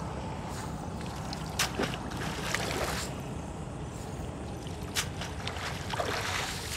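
Steady wind rumble on the microphone, with a few short clicks and brief swishing rustles as a cast net is gathered up by hand at the water's edge.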